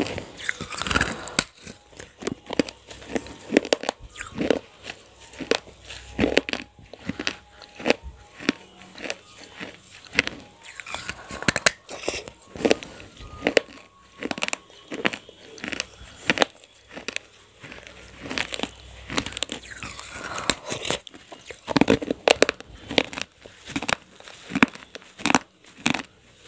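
Close-up crunching and chewing of roasted clay: bites break off pieces of a small clay pot (gullak) coated in wet clay slip, with an irregular run of sharp crunches, several a second.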